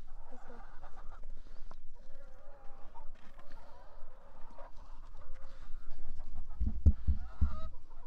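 A flock of hens clucking and murmuring, crowding around scratch feed. A brief low rumble comes about seven seconds in.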